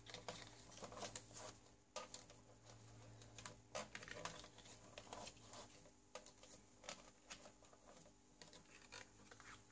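Faint scattered taps and rustles of cardstock being folded and creased by hand, the flaps turned in along their score lines.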